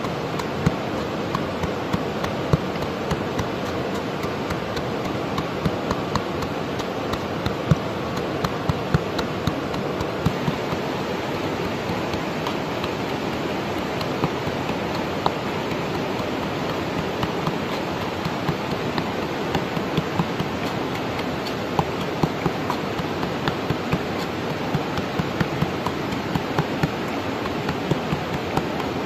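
Steady rush of flowing water, with scattered sharp knocks from a pestle pounding in a mortar.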